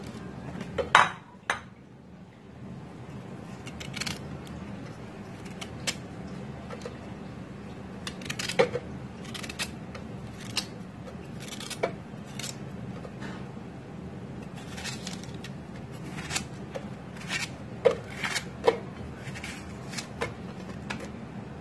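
Chopped ingredients (ginger slices, onion chunks) being dropped and pushed by hand into a blender jar, giving scattered knocks and clinks against the jar, the loudest about a second in and near the end. A steady low hum runs underneath.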